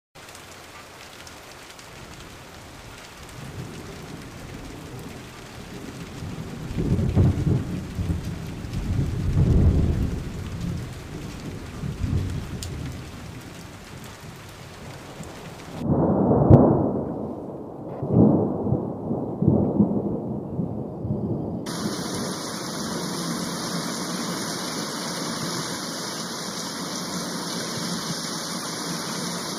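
Die-cast toy cars rolling down a plastic track, a low rumble swelling and fading several times as cars pass close by. A steady hiss runs through the last third.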